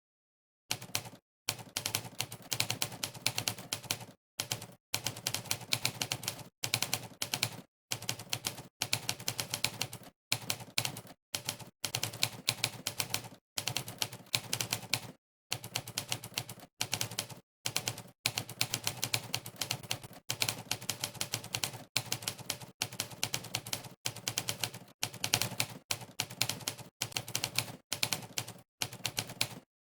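Monkeytype's typewriter keystroke sound effect, a sampled typewriter key clack played for every key pressed during fast touch-typing. It comes in rapid runs of clicks with short silent breaks every second or two, starting about a second in after dead silence.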